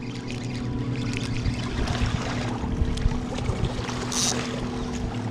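A steady low mechanical hum, with an uneven low rumble and scattered knocks from water and handling close to a wearable camera's microphone. A short hiss comes about four seconds in.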